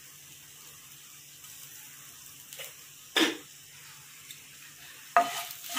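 Faint steady sizzle of garlic, peanuts and dried spices roasting in a little oil in a nonstick frying pan, with one sharp knock about three seconds in. Near the end a wooden spatula starts stirring and scraping the pan, and the sizzle gets louder.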